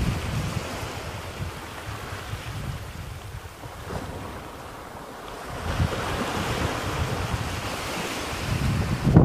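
Surf washing on a sandy beach, with wind buffeting the microphone in low gusts. The surf swells louder about halfway through.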